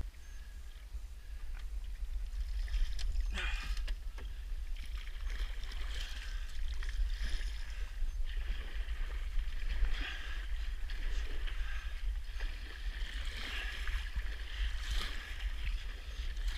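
Paddle strokes from a small paddled boat, the blade dipping and pulling through calm water again and again, with a steady low rumble underneath.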